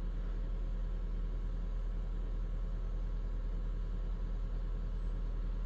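Toyota Hilux 2.4 L 2GD-FTV four-cylinder turbodiesel running steadily at idle during a forced DPF regeneration, heard from inside the cab.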